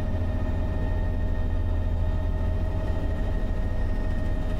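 Bell 505 helicopter running at flight throttle, heard from inside the closed cabin: a steady low rotor-and-engine drone with a thin, constant turbine whine over it.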